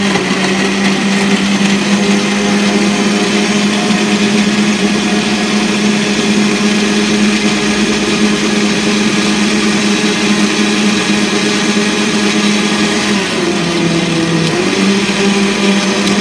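Countertop electric blender running steadily, puréeing chopped onion, sweet pepper and ginger with water into a smooth sauce. Its hum drops lower for a second or so about 13 seconds in, comes back up, and begins to wind down right at the end.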